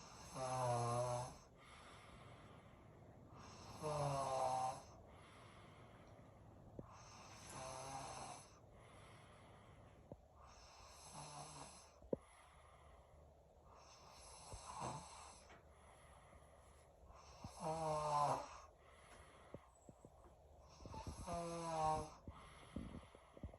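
Heavy snoring: a sleeper snores about every three to four seconds, seven snores in all, with quieter breathing between them.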